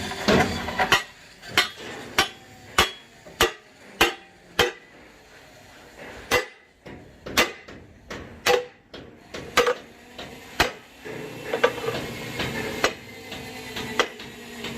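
Hammer blows on metal, a steady run of sharp ringing strikes about every half second, then slower and more irregular strikes. A steady hum joins in near the end.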